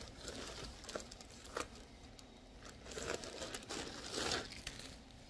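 Thin plastic garment packaging bag crinkling and rustling as it is handled and opened, in short irregular bursts, loudest about three and four seconds in.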